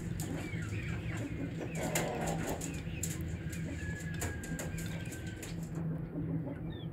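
Aseel chickens pecking feed from a steel bowl, their beaks tapping the metal in a run of quick clicks, with chicks peeping and one long, even cheep near the middle. A steady low hum runs underneath.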